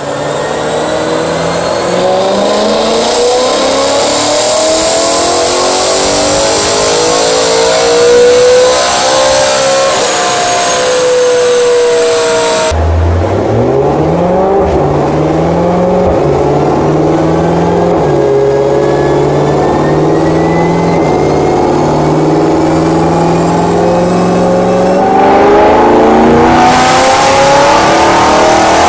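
BMW E92 M3's naturally aspirated V8 revving hard on a chassis dyno, with noise from the dyno rollers. The engine note climbs steadily for several seconds and then falls back. After a sudden cut about halfway, it rises in short steps, holds steady, and grows louder near the end.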